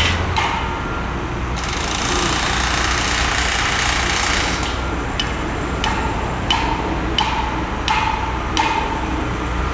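Bolts being tightened on a steel roller-coaster track joint: a run of sharp metallic clicks, each with a brief ring, about every half second in the second half. Under it is the steady hum of a heavy engine, and a stretch of hiss comes in the first half.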